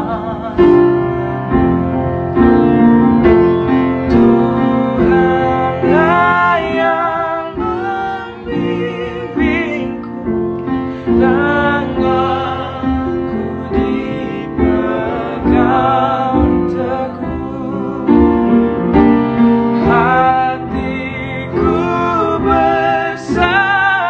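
Two male voices singing a gospel duet together, with vibrato on the held notes, over piano accompaniment.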